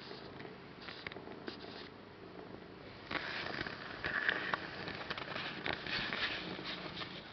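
Soft rustling and small scratchy clicks of a kitten shifting on a towel, quiet at first and getting louder from about three seconds in.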